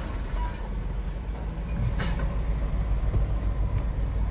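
Steady low rumble of a car ferry's engine while the ferry is under way on the river, with a faint brief knock about two seconds in.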